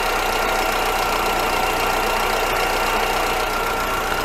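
VW Voyage G5's EA111 engine idling cold with the alternator belt off, with a steady high-pitched hiss (a 'chiado') from the timing-belt area. The owner suspects a failing water pump, or the timing-belt tensioner bearing; the noise is loud when cold and goes away once the engine warms up.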